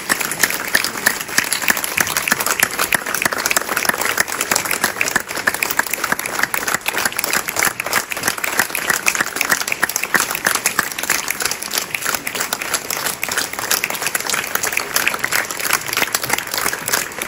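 A large audience applauding steadily, many hands clapping thickly without a pause.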